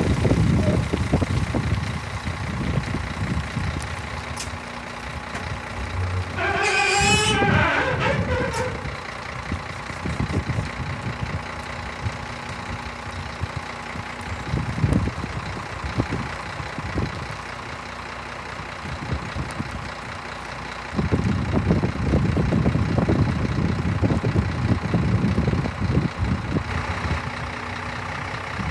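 Scania 380 hooklift truck's diesel engine running while its hydraulic hook arm tips the container. There is a high squeal with a wavering pitch about 7 seconds in, and the engine grows louder from about 21 seconds in.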